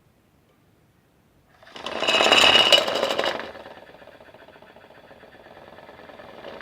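Small electric motor of a toy washing machine running: a loud buzzing rattle starting about a second and a half in, then settling to a steadier, quieter hum.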